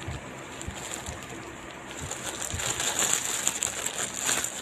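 A dove cooing in the background, with light rustling and handling noise.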